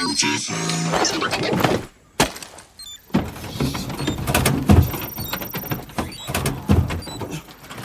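Film sound mix: a loud burst in the first two seconds that cuts off, then a car being driven fast, with rattling and repeated sharp knocks.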